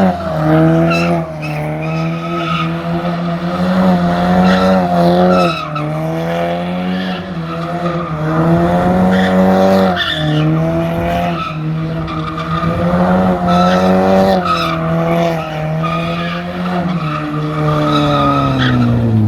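A car's engine held at high revs, the revs swinging up and down every couple of seconds, with tyres squealing as the car skids round in circles.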